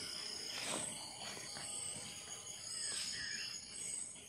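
Faint outdoor ambience of short, high chirps repeating every second or so, from insects and birds, with a falling call about three seconds in. A few soft knocks come from duck meat being cut on a wooden chopping block.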